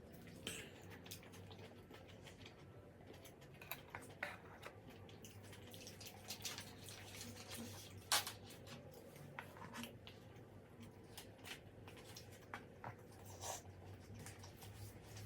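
Faint eating sounds of braised pork kimchi stew: wet chewing with scattered sharp utensil clicks, the loudest about eight seconds in.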